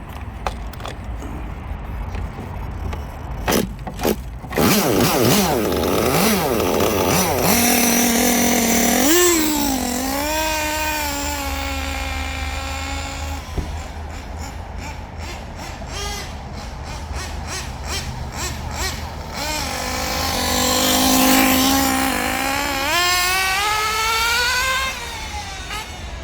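Small nitro glow-fuel RC car engine running with a high whine that rises and falls as it is revved, then cuts off suddenly about halfway through, followed by rapid ticking and another run with rising revs near the end. The owner takes the repeated dying to be a failing turbo glow plug that cannot keep the engine lit at idle.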